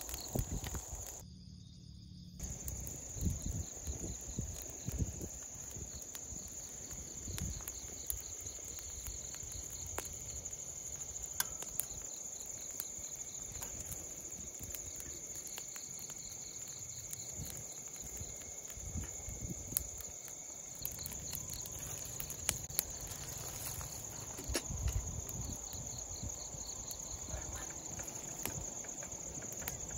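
Crickets and other night insects trill steadily, high-pitched, with a regular pulsing chirp beneath. Scattered small crackles and knocks come from a wood campfire and from cookware being handled.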